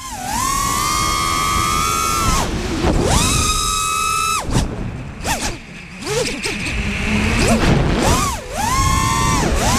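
Five-inch FPV quadcopter's T-Motor F40 2500kv brushless motors and tri-blade props whining, the pitch rising and falling with throttle. The whine drops away three times, about two and a half seconds in, for a longer stretch around the middle, and briefly near the end, as the throttle is chopped. Wind rushes over the onboard microphone.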